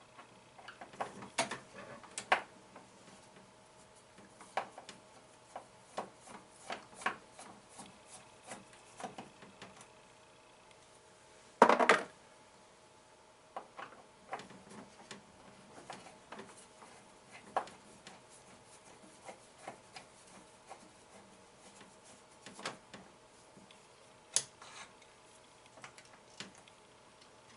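Screwdriver and metal flipper-assembly parts clicking, scraping and rattling as a pinball flipper mechanism is taken apart, with one louder clatter about twelve seconds in.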